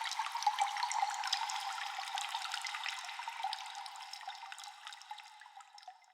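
Cave ambience: many water drops falling in quick, irregular succession over a steady trickle of running water. The sound fades away over the last couple of seconds.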